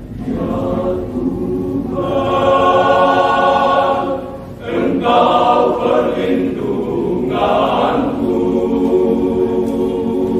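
Men's choir singing sustained chords in harmony, with a brief dip between phrases about four and a half seconds in.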